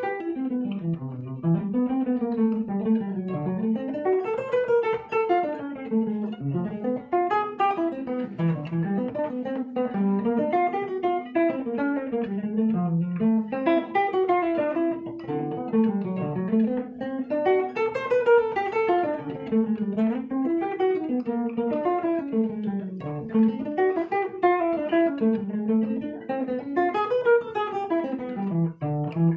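Acoustic guitar played as a jazz improvisation, plucked melodic runs that rise and fall over and over without a break.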